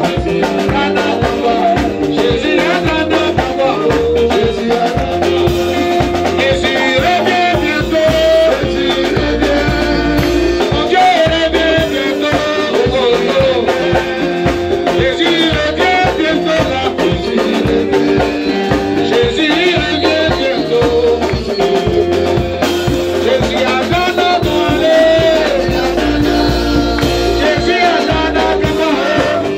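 Live worship music played through a loudspeaker system: a man singing lead into a microphone over band backing with a steady beat.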